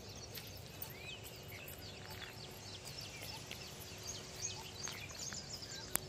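Wild birds calling, with many quick high chirps and a few arched, gliding whistled notes.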